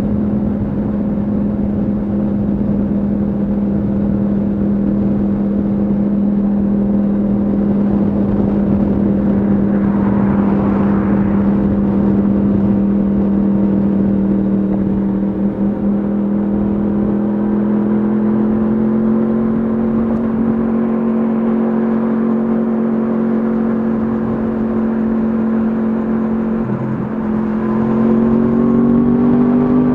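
Yamaha MT-10 SP's crossplane inline-four through an Akrapovic exhaust, running at a steady engine speed while cruising, then climbing in revs near the end.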